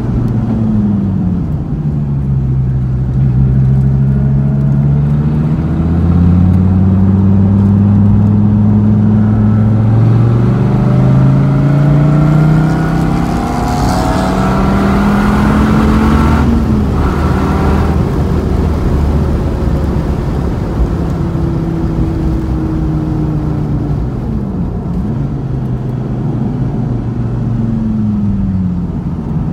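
Dodge Viper's V10 engine heard from inside the car at speed on a track, its pitch rising and falling as the driver accelerates, shifts and brakes. The pitch climbs steadily to a peak about 16 seconds in, drops sharply as the throttle comes off, and rises again near the end.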